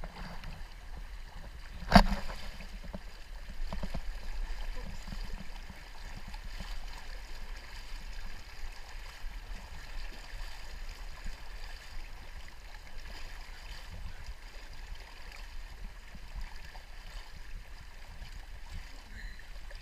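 Steady rush of shallow river water flowing past the microphone, with one sharp knock about two seconds in.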